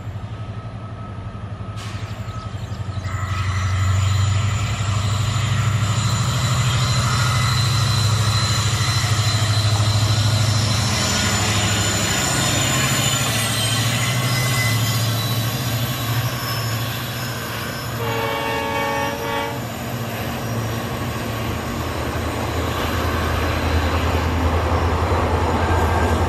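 Indian Railways EMD WDP-4D two-stroke diesel locomotive passing close with its passenger train, its engine running with a loud, steady deep drone. A train horn sounds once, about a second and a half long, a little past the middle.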